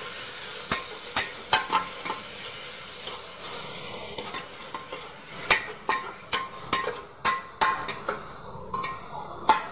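Metal spatula stirring chopped tomatoes and browned onions in a pan of hot oil: a steady sizzle with repeated scrapes and clinks of the spatula against the pan. The strokes come fastest in the middle, about two a second, and the sizzle thins near the end.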